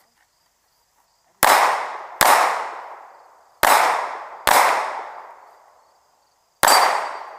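Five pistol shots: two about a second and a half in, two more a little later, and a single shot near the end, each trailing off in a long echo.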